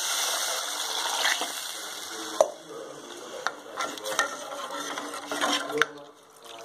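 Water sizzling as it hits hot oil and vegetables in an aluminium pot; the sizzle cuts off about two and a half seconds in. A steel spoon then stirs the pot, clinking and scraping against its sides several times.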